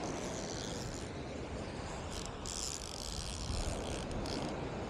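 Wind rumbling on the microphone over the wash of breaking surf, with a short stretch of brighter hiss about halfway through and a few faint clicks.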